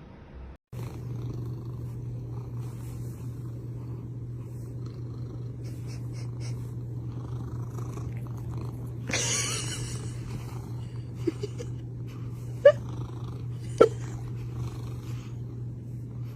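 A cat purring steadily and close up, a continuous low rumble. A brief rustle comes about nine seconds in, and two sharp clicks come near the end.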